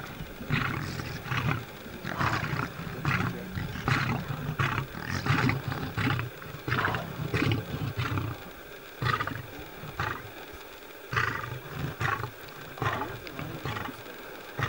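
Male lion growling low and continuously over a carcass, with short breaks, while the surrounding spotted hyenas give short high calls about once or twice a second.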